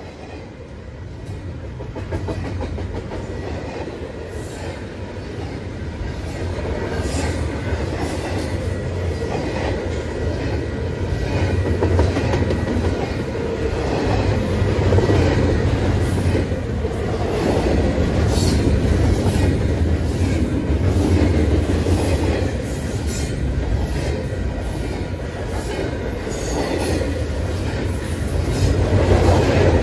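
Double-stack intermodal freight train rolling past close by: steel wheels clacking over the rail joints, with heavy rumble and a faint steady wheel squeal. It swells over the first couple of seconds, then holds loud.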